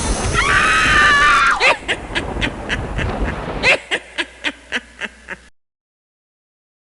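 Slap sound effect: a quick string of a dozen or so sharp slaps, about three a second and fading, stopping dead about five and a half seconds in. Before the slaps comes a brief pitched, wavering sound.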